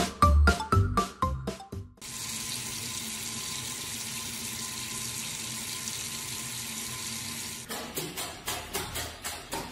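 Water running steadily from a tap into a filled sink for about six seconds. Before and after it comes light background music with a quick beat.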